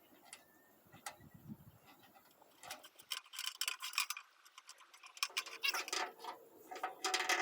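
Small metal hardware clicking and rattling as a spacer is fitted by hand. A few separate clicks come first, then quick runs of ticks start about two and a half seconds in and again about five seconds in.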